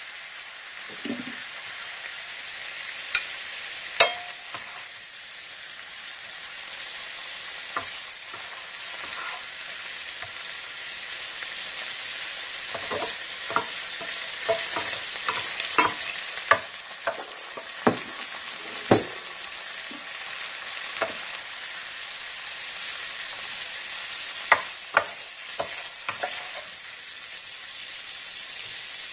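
Stir-fried chicken, carrots and cabbage sizzling in a black electric skillet with a steady hiss, while two wooden spatulas stir, scrape and scoop the food. Sharp wooden knocks of the spatulas against the pan come now and then, thickest in the middle.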